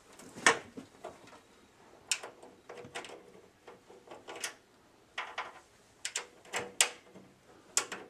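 Sheet-metal computer case being handled as its side panel is fitted and the thumb screws are put back in: about a dozen irregular metallic clicks and knocks, the sharpest about half a second in.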